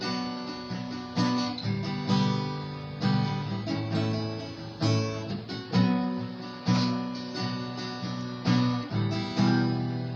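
Instrumental break in a song: acoustic guitar strummed in a steady rhythm, with a strong stroke about once a second.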